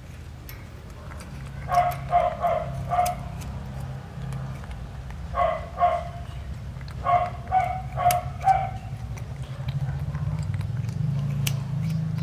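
A dog barking in short runs of two to five barks, a few seconds apart, over a low steady hum.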